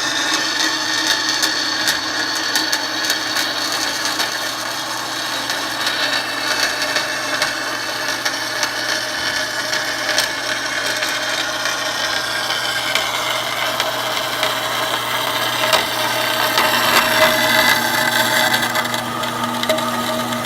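Band saw running and cutting a workpiece, a steady drone with the sound of the blade in the cut growing louder for a few seconds near the end.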